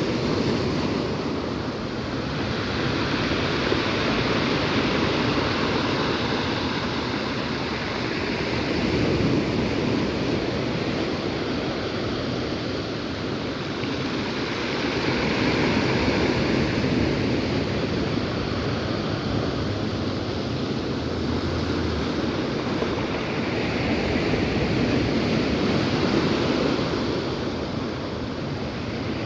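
Sea surf: waves breaking and washing onto the shore in a continuous rush that swells and eases in slow surges every several seconds.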